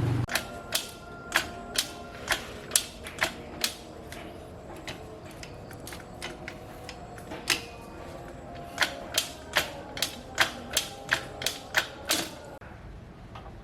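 A series of sharp metallic taps with a slight ring, about two to three a second. They come in a run over the first few seconds, grow sparse in the middle, and return as a second run near the end.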